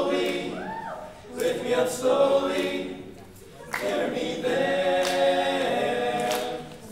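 Male a cappella group singing in close harmony, sustained chords swelling and fading in phrases, with one voice sliding up and back down in pitch a little under a second in.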